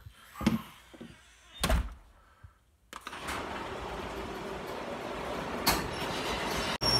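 Two thumps, then from about three seconds in a garage door opener starts and runs steadily as the door rolls up, slowly growing louder.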